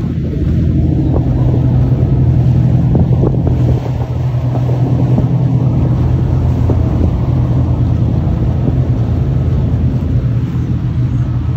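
A 100-foot Westship motor yacht passing close, its engines giving a steady low drone over the wash of its wake, with wind buffeting the microphone.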